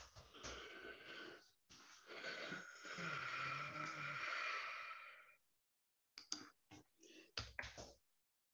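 A man's long, breathy exhale or sigh close to the microphone, faint, with a low hum of his voice in the middle of it. It is followed by a few short, soft mouth or breath noises.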